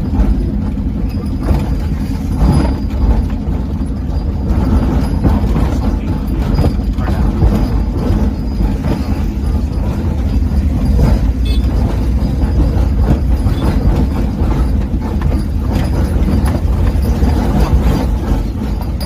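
Car driving on a rough unpaved road, heard from inside the cabin: a steady low engine and tyre rumble with scattered knocks and rattles from the bumpy surface.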